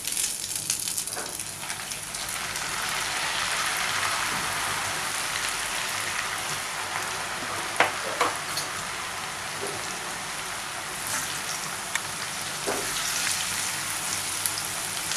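Flour-dusted boiled noodles deep-frying in hot oil in a kadai: a dense, steady sizzle that builds within the first couple of seconds as the noodles go in, with a few sharp clicks of a metal slotted spoon stirring them.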